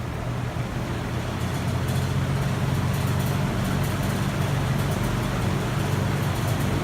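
Large vintage Kenmore (Sears) box fan with a Westinghouse motor running on medium speed, set to intake: a steady rush of air over a low motor hum. It builds over the first couple of seconds as the blades come up to the new speed, then holds steady.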